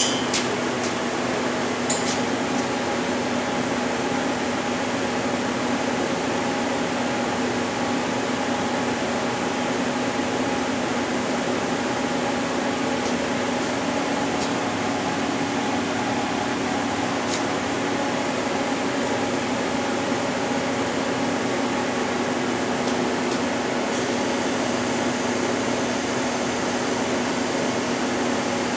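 A powered-up 1997 Bridgeport PowerPath 15 CNC lathe humming steadily, with a few steady tones in the hum, while its control boots and runs its self test. There are a couple of light clicks in the first two seconds.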